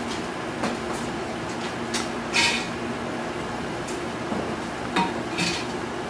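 Hanging metal cans on a puppies' play frame knocked about and clanking: about six sharp metallic knocks, the loudest a ringing clang about two and a half seconds in and another at five seconds.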